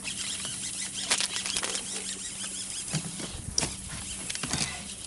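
A hooked largemouth bass splashing and thrashing in the water: irregular slaps and splashes, with a steady low hum underneath.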